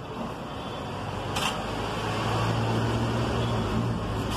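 Road traffic going by, with a motor vehicle's engine hum building through the middle and easing off near the end. There is a single light click a little over a second in.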